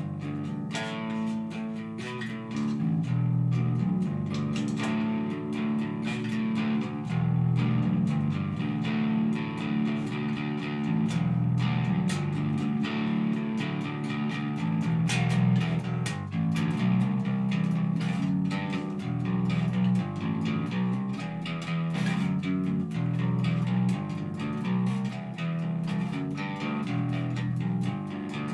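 Glarry GP precision-style electric bass guitar played continuously: a steady stream of plucked notes.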